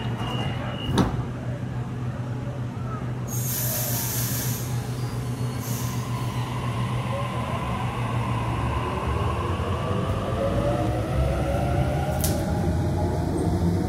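Double-deck electric passenger train standing at a platform and then pulling away. A steady low hum, a sharp clunk about a second in and a short burst of hissing a few seconds later are followed by the whine of the traction motors rising in pitch as the train accelerates.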